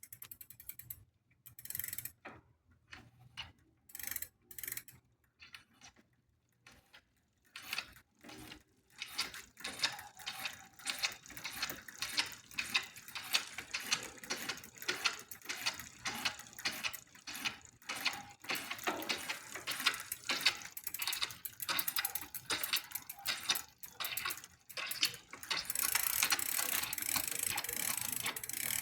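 Bicycle drivetrain clicking and ratcheting: short bursts for the first several seconds, then rapid continuous clicking that gets denser near the end. It is the noise the owner first took for the bottom bracket bearing and later traced to a worn crank arm letting the chain rub on the derailleur.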